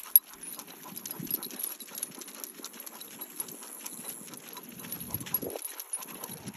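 Two basset hounds walking on leashes over a concrete sidewalk: a quick, continuous patter of claws clicking on the pavement, with one sharp click just after the start.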